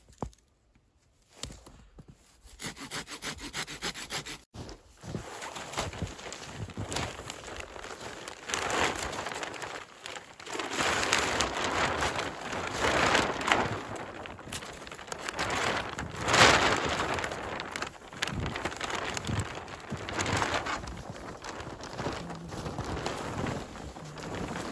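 Plastic tarp crinkling and rustling as it is unfolded, shaken out and lifted over a ridgeline, loudest around the middle.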